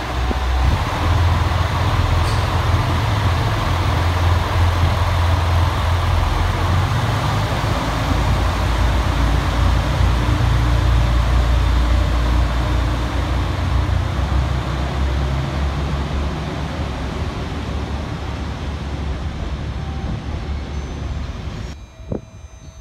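Diesel limited-express railcars pulling out of the station, their engines running with a deep, steady rumble. Near the end the sound drops suddenly to much quieter station background.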